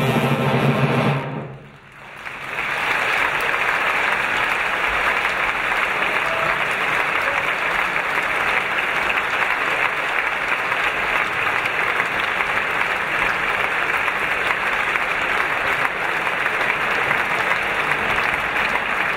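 An orchestra holds a loud final chord that cuts off about a second in; after a brief hush, the audience breaks into steady, sustained applause.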